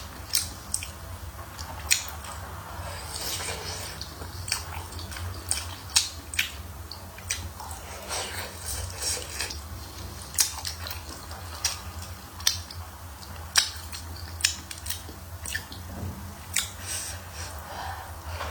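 A person eating hotpot food close to the microphone: wet chewing and lip smacks with frequent, irregular sharp clicks, over a steady low hum.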